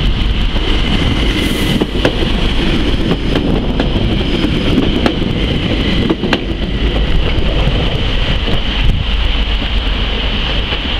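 Stadler FLIRT diesel multiple unit passing close by and running away, heard through wind on the microphone, with a few sharp clicks as it goes past.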